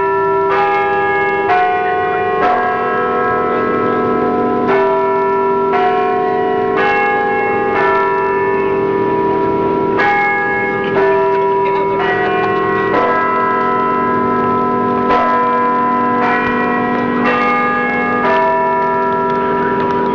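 Church bells ringing, a different note struck about once a second, each stroke ringing on into the next.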